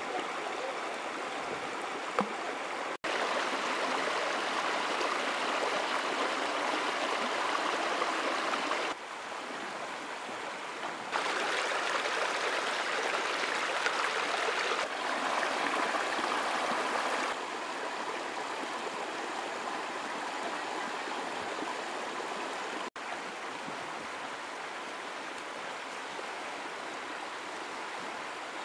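Shallow river water rushing and babbling over rocks, a steady noise whose loudness jumps abruptly up or down several times.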